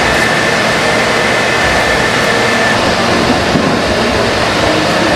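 Steady, loud mechanical running noise, with a faint high whine that stops about two and a half seconds in.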